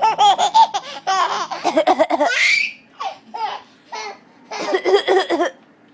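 Eleven-month-old baby laughing hard in a string of high-pitched bursts, with a short break in the middle and another bout near the end.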